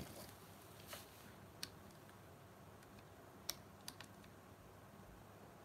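Near silence: quiet room tone with a few faint, short clicks.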